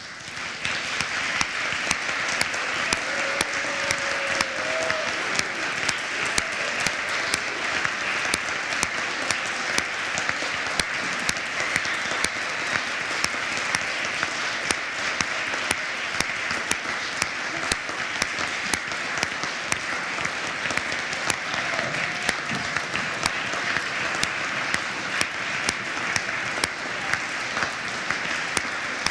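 Audience applauding at the end of a performance for a soprano and string quartet. The clapping breaks out suddenly from silence and carries on, dense and steady.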